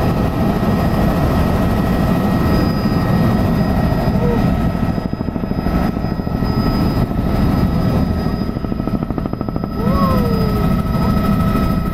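Helicopter cabin noise in flight: the steady, loud rumble of the rotor and engine, with several steady high tones running over it.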